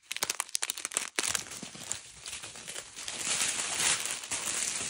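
Plastic crinkling: a small zip-lock bag of diamond painting drills being handled, with a quick run of crackles at first, then a steadier rustle that gets louder near the end.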